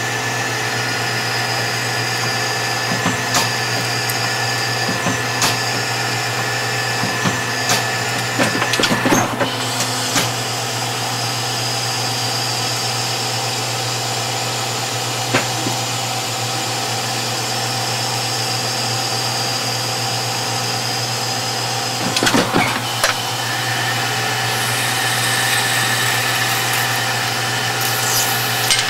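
Hardinge DSMA automatic turret lathe running and cutting bar stock under flood cutting oil: a steady mechanical hum and whine with scattered small ticks, and a short burst of clunks about nine seconds in and again around twenty-two seconds.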